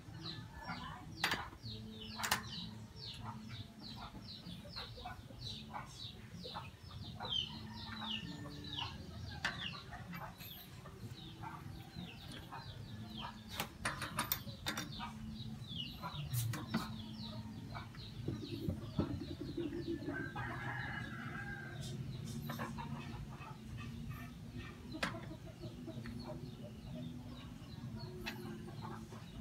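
Birds chirping in quick runs of short falling notes, most through the first half. Now and then a sharp metal clink from a T-handle socket wrench on the bike's front axle nut, over a low steady hum.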